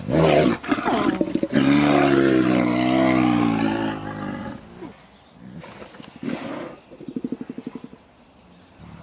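A brown bear and a large dog confronting each other: loud roaring and growling, with one long wavering roar of about three seconds early on, then quieter growls and a quick rattling run of pulses near the end.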